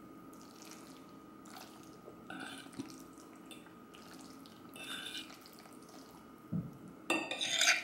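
Wet, sticky eating sounds of creamy shrimp Alfredo pasta: noodles in thick sauce worked and lifted with a fork, a few short squelches about two and five seconds in and a louder run of them near the end.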